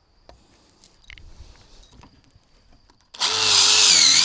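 Faint ticks and knocks, then about three seconds in a cordless drill's motor runs loudly for about a second and a half, its whine wavering up and down in pitch before it stops.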